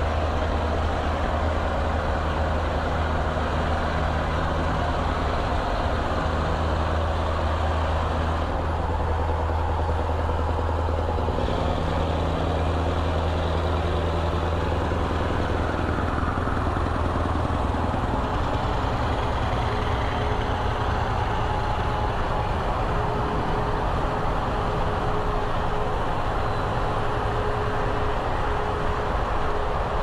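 Scania 164L 580 V8 diesel on open exhaust pipes, cruising with a steady deep drone inside a road tunnel, mixed with tyre and air noise as the camera runs alongside.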